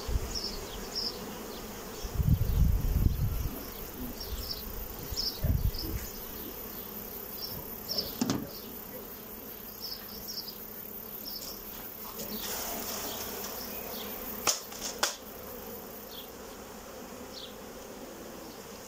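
Honeybees buzzing steadily over an open hive. A low rumble comes about two seconds in, and a few sharp knocks follow later as the frame-type queen excluder is handled and lifted out.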